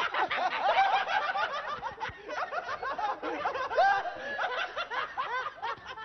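A group of people laughing together, many voices chuckling and giggling over one another.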